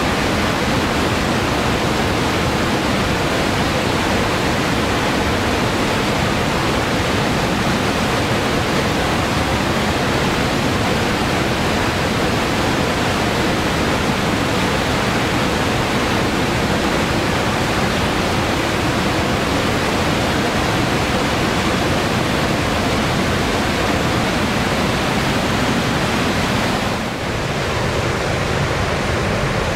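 Whitewater rapids of a river falls rushing loudly and steadily, dipping briefly near the end.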